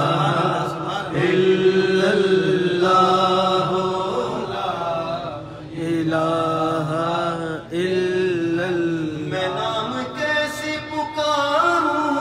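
Unaccompanied male voice through a microphone, chanting a devotional verse with long, wavering held notes and brief pauses for breath.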